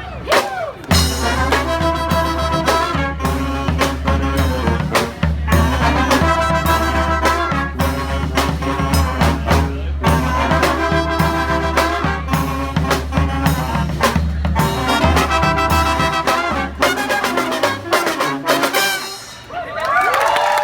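Brass band playing live: trumpets and trombones over a strong low bass line and drum hits. The tune stops about a second before the end, and the crowd starts cheering.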